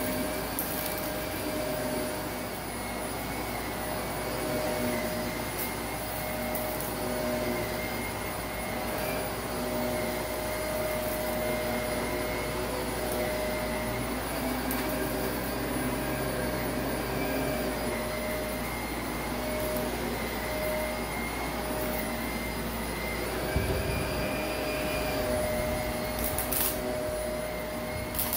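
Shark Navigator upright vacuum running steadily over a shag rug: a constant motor whine and suction roar, with a few faint crackles of grit going up the nozzle. A brief thump near the end.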